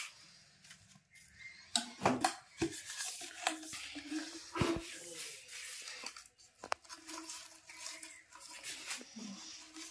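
Hands working a plastic pipe down over a leaf-wrapped sapling: rubbing and rustling of plastic and leaves, broken by several sharp knocks and clicks of the pipe.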